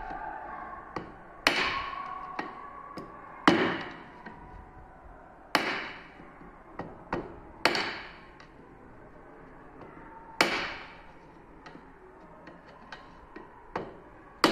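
A hammer strikes the handle of a flat-head screwdriver, driving it against an orange PVC drain socket to chip away the socket's collar in small pieces after hacksaw cuts. There are five sharp blows about two seconds apart, each ringing briefly, with lighter taps and clicks in between.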